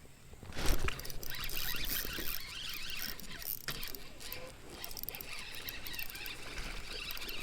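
Water splashing and trickling close by on a river, starting suddenly about half a second in, with scattered small knocks and clicks.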